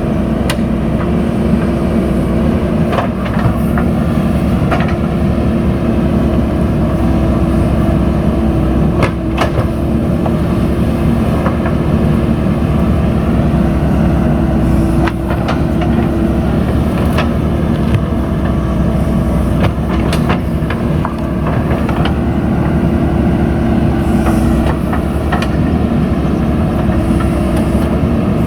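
JCB 3DX backhoe loader's diesel engine running steadily under working load, with a constant hum over a low rumble. Scattered sharp knocks and clanks come through it now and then.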